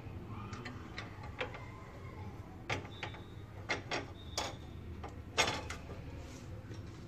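Low room hum with scattered light clicks and taps, about a dozen of them at irregular intervals, the loudest about five and a half seconds in.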